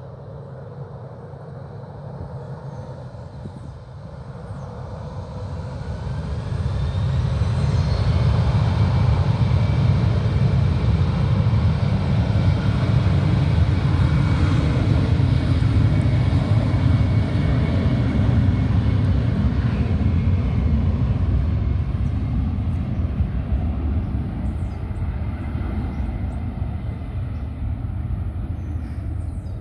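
Airliner engines during departure, growing louder over the first several seconds, staying loud for a long stretch with a steady whine, then slowly fading.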